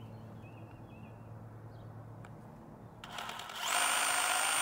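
DeWalt 20V Max cordless rotary hammer starting up about three seconds in and running steadily with a high whine as it drills into a concrete block wall.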